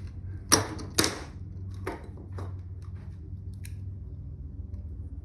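Window screen and frame being handled: a few sharp clicks and taps, the two loudest about half a second and a second in, then softer ones, over a steady low hum.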